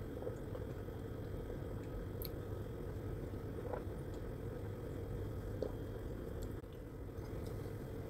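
A person drinking thick blended orange, banana and pineapple juice from a mug, with faint swallowing and wet mouth sounds over a steady low room hum.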